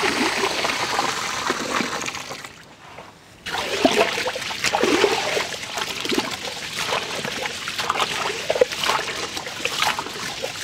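Water pours into a large aluminium pot of raw rice. After a short pause about three seconds in, a hand swishes and rubs the rice through the water, sloshing and splashing as the rice is washed.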